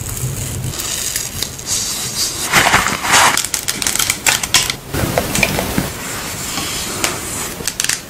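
Rapid close-up clicking, tapping and scraping of skincare packaging being handled, with a bottle cap being twisted open.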